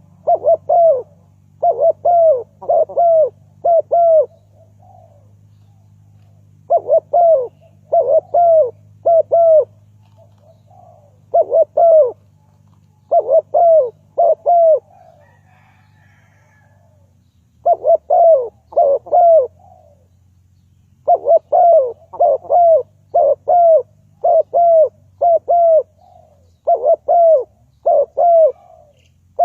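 Spotted dove cooing: loud series of short coos, three to five at a time, repeated after pauses, with a faint steady low hum underneath.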